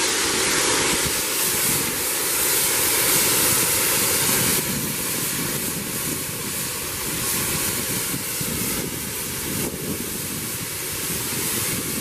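Steam locomotive's safety valve blowing off: a loud, steady rushing hiss of steam as excess boiler pressure is vented, with some wind on the microphone.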